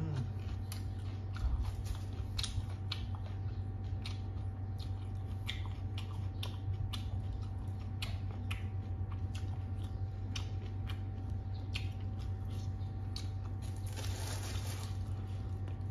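A person chewing crunchy food close to the microphone, green papaya salad and raw vegetables, with many small crisp crunches over a steady low hum.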